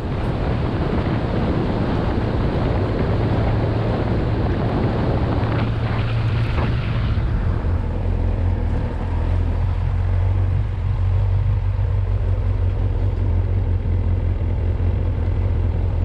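Motorcycle engine running steadily at road speed, with wind rushing over the microphone. The rushing noise drops away about seven seconds in, leaving mostly the engine's low drone.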